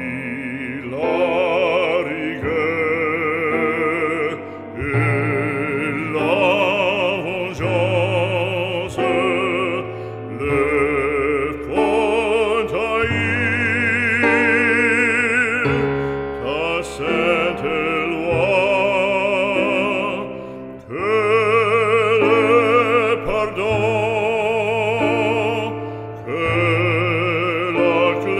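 Background music: an operatic solo voice singing with wide vibrato over sustained instrumental accompaniment.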